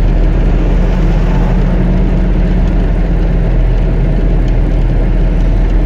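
FSO Polonez Truck pickup heard from inside the cab while driving at a steady speed. Its 1.6-litre petrol engine and the tyres make a loud, even drone.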